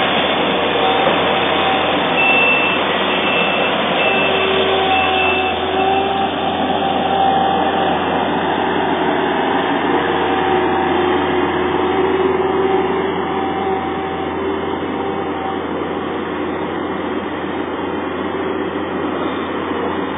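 Racoon skid steer loader working: its engine and hydraulics run with a steady drone and a whine that wavers in pitch as the load changes. A faint repeated high beep sounds for a few seconds starting about two seconds in, and the machine gets a little quieter about two-thirds of the way through.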